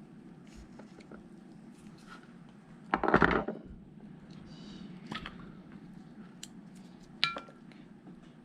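Metal tools and parts being handled: a loud half-second clatter about three seconds in, a few light clicks, and a sharp metal clink that rings briefly near the end.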